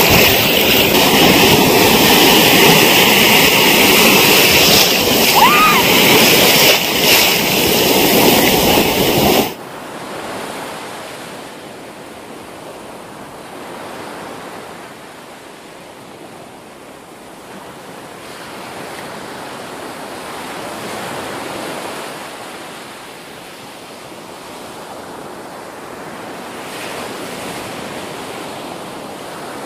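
Ocean surf washing in the shallows: loud and rough for about the first ten seconds, then it drops suddenly to a softer wash of waves that swells and fades slowly.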